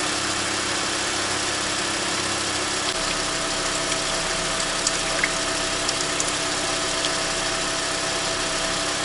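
Toyota Esquire minivan's engine idling steadily under an even hiss, its hum shifting to a higher pitch about three seconds in.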